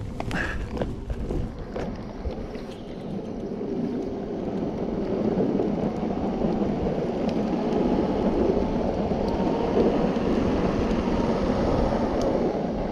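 Meepo Mini 2 electric skateboard's wheels rolling over coarse asphalt, a steady road rumble mixed with wind on the microphone. It grows louder over the first few seconds as the board speeds up in its third speed mode, then holds steady.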